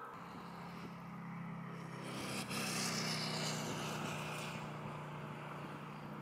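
Airbus A350-900's Rolls-Royce Trent XWB turbofan engines running as the airliner rolls along the runway: a steady low hum under a hissing whine that swells about two and a half seconds in and fades again before the end.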